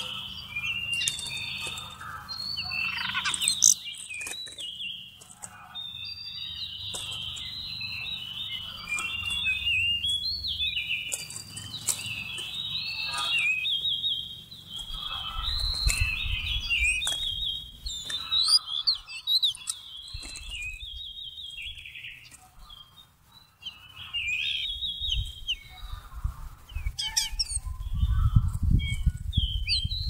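Magpie-robin singing: a near-continuous run of varied chirps and warbled phrases with brief pauses. A low rumble comes in about halfway through and again near the end.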